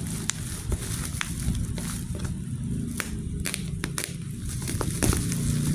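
Irregular crackling and clicking of plastic packaging being handled and opened, over a steady low hum.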